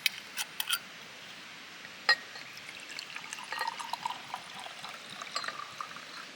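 A few sharp clicks, then liquid being poured, trickling and gurgling for about three seconds.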